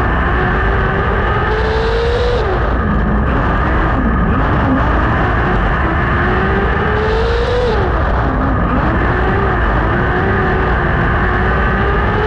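600cc micro sprint car's engine under race load, heard from on board: the pitch climbs for a couple of seconds as it accelerates, then drops sharply as the throttle is lifted for a turn. This happens about twice, and it is climbing again near the end.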